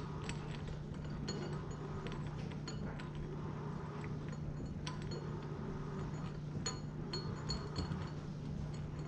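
Small metallic clicks and clinks of bolts and washers being hand-threaded into a fuel sump flange on a fuel tank, over a steady low hum.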